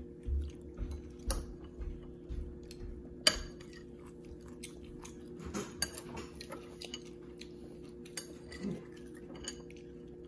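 A toddler chewing a mouthful of curry rice, with a few sharp clinks of metal cutlery against the bowl, the loudest about three seconds in.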